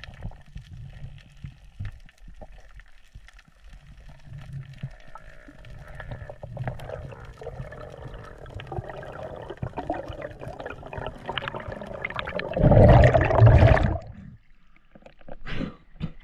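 Water noise heard underwater during a spearfishing dive: a low rush with scattered clicks and crackles that builds up, then a loud gush of water for about a second and a half near the end as the diver rises to the surface.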